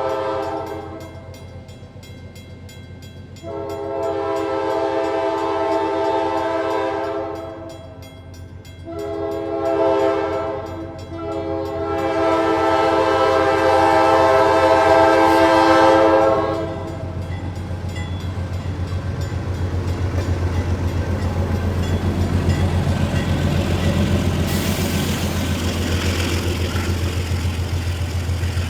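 GE Dash 8 diesel locomotive's air horn sounding the grade-crossing signal: long, long, short, long, the last blast held for about six seconds. Then the locomotive's diesel engine runs past with a low, steady pulse and the train's wheels clatter on the rails.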